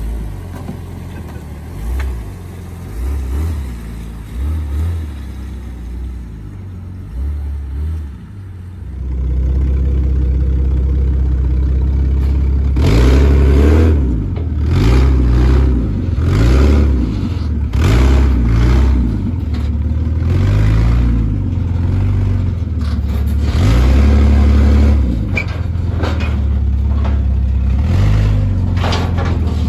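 Jeep Grand Cherokee WJ engine running without a muffler, so it is loud. It surges quietly for the first few seconds. From about nine seconds in it is much louder, with a string of revs rising and falling about once a second as the Jeep climbs onto a car trailer.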